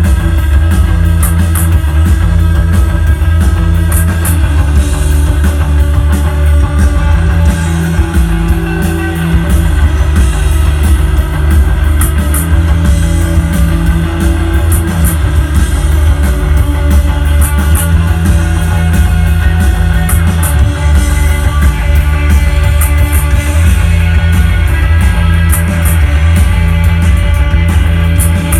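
Live rock band playing a song: electric guitars over bass and drum kit, loud and continuous.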